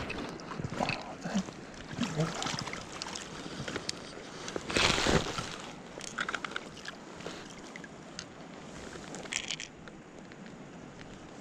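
River water running over rocks, a steady rushing, with small splashes and knocks as a small trout is handled in a landing net. A brief louder rush of noise comes about five seconds in.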